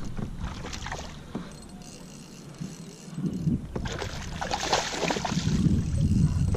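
A hooked fish splashing and thrashing at the surface beside a kayak, loudest about four seconds in, over low wind and water noise.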